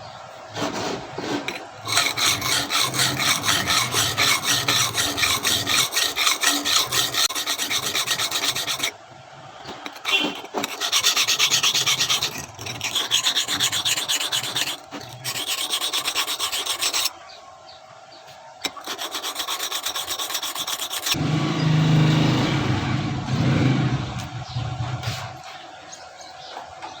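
Hand filing: a file or rasp worked in rapid back-and-forth strokes in runs of several seconds, shaping the knife being made from an old saw blade and brush handle. It breaks off briefly twice, and near the end gives way to a lower, heavier rubbing.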